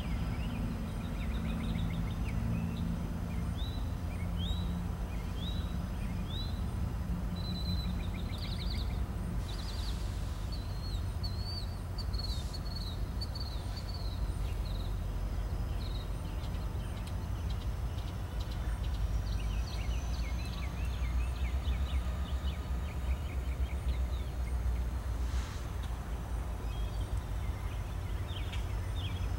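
CSX diesel-electric freight locomotive approaching slowly, its engine a low steady rumble that grows louder in the second half. Small birds chirp throughout.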